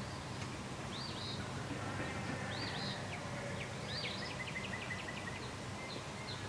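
A small bird calling outdoors: a short chirp that rises and falls, repeated every second or so, then a quick run of short high notes about four seconds in. A faint steady low hum lies underneath.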